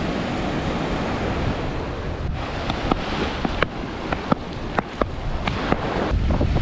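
Sea surf washing in with wind buffeting the microphone, a steady rushing noise. A scatter of sharp clicks or taps sounds through the middle seconds.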